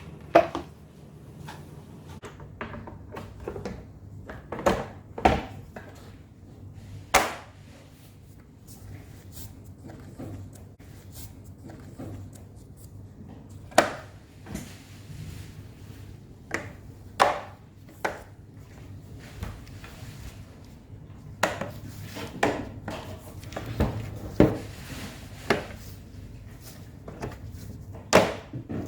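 Refrigerator fan grill and its parts being handled and fitted together by hand: irregular sharp clicks and knocks, over a faint low steady hum.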